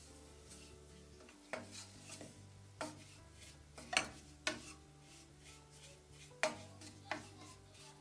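Wooden spoon stirring and scraping crumbly flour roasted in butter around a stainless steel pot, the roux being browned. The spoon knocks sharply against the pot about six times, loudest near the middle and about two-thirds of the way through.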